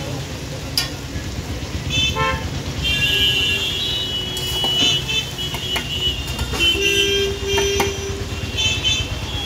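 Road traffic: a steady low engine rumble with vehicle horns honking in many short, high-pitched toots, and a longer, lower horn note about seven seconds in. A few sharp clicks sound between the honks.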